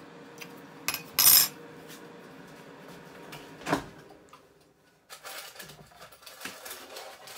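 A metal fork clinking and scraping against a glass dish: a few sharp clinks in the first two seconds and a duller knock near four seconds, then softer, irregular handling noise.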